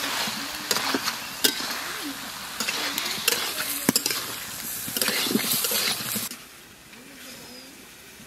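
Radish pieces sizzling in hot oil and spices in a steel karahi while a spatula stirs them, scraping and clinking against the pan several times. About six seconds in the sizzle drops to a faint hiss.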